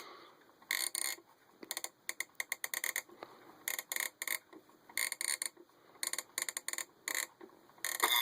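Bursts of small mechanical clicks from turning the setting knob of a 1970s Sankyo Digi-Glo roll alarm clock, the number rollers being advanced to bring on the alarm.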